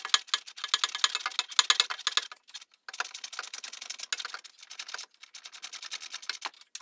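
Hand socket ratchet clicking in quick, even runs as a bolt is turned, with two short breaks.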